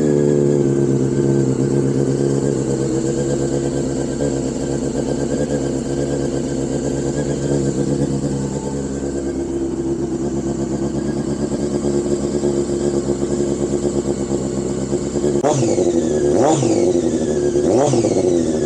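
Honda CBR600F4i inline-four motorcycle engine running on a cold start, its revs easing down at the start and then idling steadily. Near the end the throttle is blipped three times, the revs rising and falling quickly each time.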